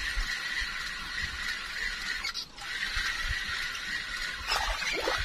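Steady, high insect drone, broken off briefly about two and a half seconds in, with a few short squeaky sounds near the end.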